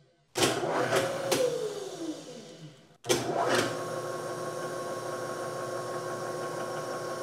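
Bridgeport knee mill's spindle motor driving a large tap. It starts with a few knocks and a hum that falls in pitch as it winds down, then, after an abrupt break, runs at a steady hum.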